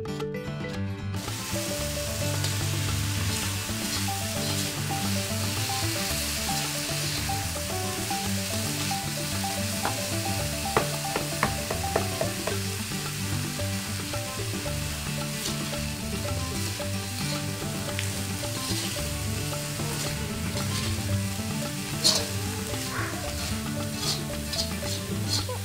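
Shredded chicken and spice paste sizzling as they stir-fry in a wok, with a few sharp clicks and scrapes of a metal spatula against the pan.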